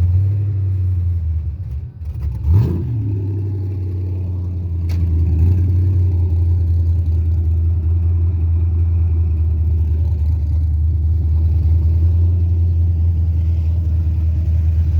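Carbureted 5.3 LS V8 running: about two seconds in, the idle sags and nearly dies, a quick throttle blip picks it back up, and from about five seconds it holds a steady, slightly louder idle. The uneven idle fits the starts-and-dies and fast-idle trouble that the owner puts down to the carburetor, the timing or a vacuum leak.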